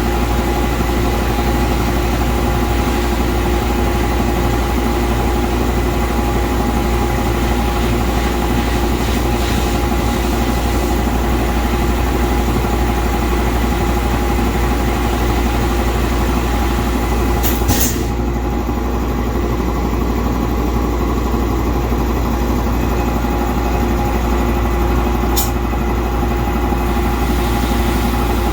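Air compressor running steadily as it pumps up its tank and the new air lines. Sharp clicks come about two-thirds of the way through and again near the end, and a high hiss quietens after the first click.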